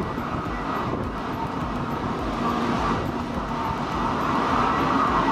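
Steady roar of storm wind and heavy seas breaking against the legs of an offshore oil platform, growing a little louder toward the end.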